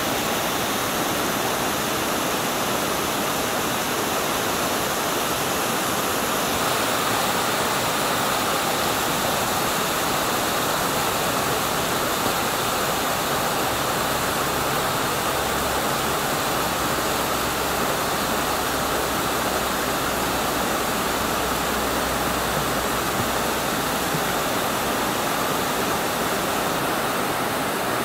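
Steady rushing of a small creek waterfall spilling down a rock face into a shallow pool.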